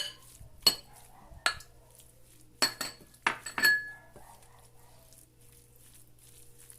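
A spoon clinking against a bowl about seven times in quick succession while the tuna filling is mixed, one strike ringing briefly; the clinks stop about four seconds in.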